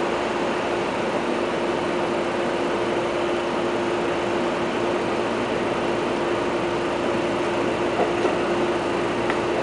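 Seibu 20000 series electric commuter train running along the track, heard from inside the front of the train: a steady rumble from the wheels and running gear with a steady hum, and a couple of faint ticks near the end.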